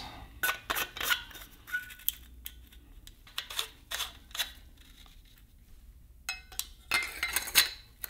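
Parts of a Pyrotronics F3 smoke detector being fitted and screwed back together by gloved hands: scattered clicks and light knocks of the housing pieces, with a few short ringing tones and a closer run of knocks near the end.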